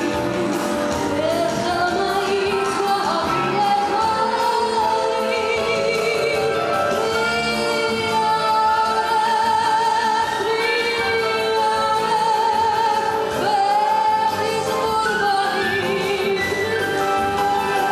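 A woman singing into a microphone over musical accompaniment, holding long notes with vibrato that slide between pitches.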